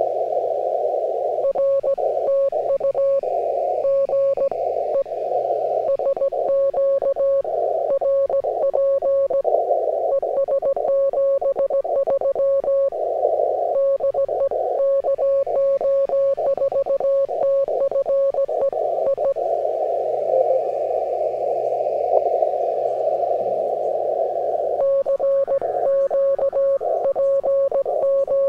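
Morse code (CW) signal on an amateur radio receiver tuned to the 20-metre band: a single steady tone keyed in dots and dashes over constant receiver hiss. The keying breaks off briefly a little before the middle, and again for several seconds past the middle, leaving only the hiss before the dots and dashes resume near the end.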